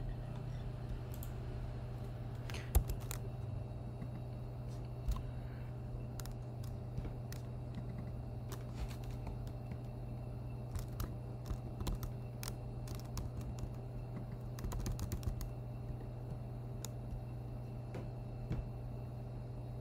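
Typing on a computer keyboard: scattered keystrokes with pauses, a few louder clicks, and a quick run of keys about fifteen seconds in, over a steady low hum.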